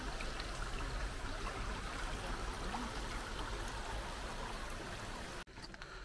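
Small shallow stream running over stones, a steady even rush of water. It cuts off suddenly about five and a half seconds in, giving way to quieter outdoor sound.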